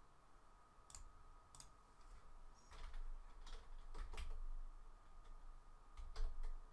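Scattered clicks of a computer mouse and keyboard: a couple of single clicks, then small clusters of keystrokes.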